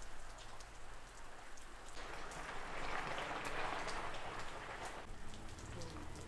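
Steady rain falling, with scattered drops ticking.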